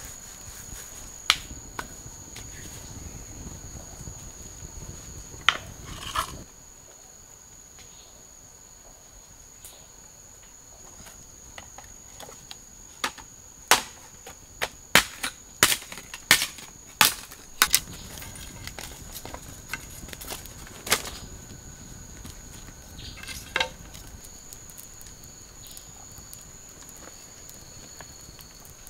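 A steady high-pitched insect drone, with a fainter second tone below it, over a dozen or so sharp cracks and snaps from a small campfire of dry sticks and the sticks being fed into it. The snaps come most thickly about halfway through.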